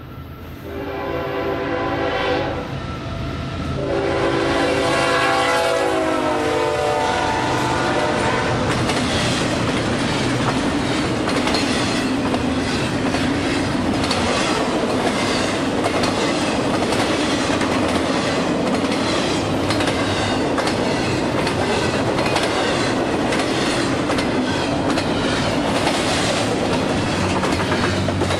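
Freight locomotive horn sounding several blasts for the grade crossing, the last long blast dropping in pitch as the locomotive passes close by. Then a double-stack container train rolls past with a steady rumble and a rhythmic clickety-clack of wheels over the rail joints.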